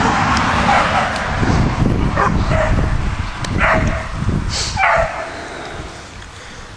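A dog giving about half a dozen short barks and yips, which stop about five seconds in, over a low rumble on the microphone.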